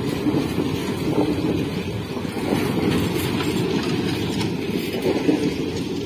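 Indian Railways passenger coaches rolling past at close range: a steady rumble of wheels on rail, with occasional clicks as wheels cross rail joints.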